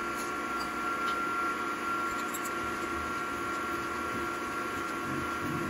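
Milling machine spindle running with a steady whine as a 3/16-inch two-flute end mill cuts into an aluminum hub adapter. The cut suggests to the machinist that a bit of broken tap may still be in the hole.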